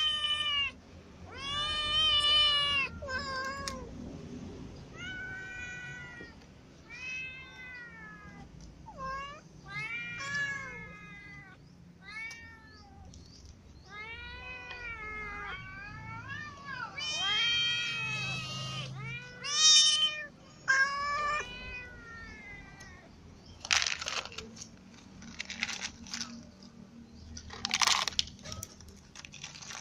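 Several cats meowing, one call after another, each rising and falling in pitch, with a kitten among them. From about 23 seconds in, the meowing gives way to a cat crunching dry kibble in short bursts.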